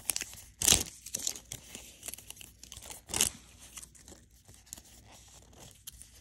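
Outer wrapper of an MGA Miniverse capsule ball being torn off by its tear strip, with crinkling. There are two loud rips, about a second in and about three seconds in, then quieter crinkling.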